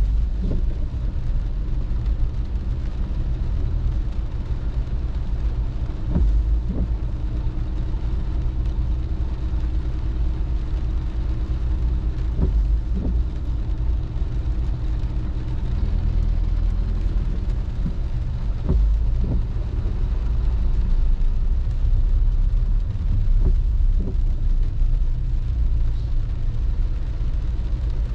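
Steady low rumble of a car's engine and road noise, heard from inside the cabin in slow traffic, with a pair of short knocks about every six seconds from the windscreen wipers on an intermittent setting.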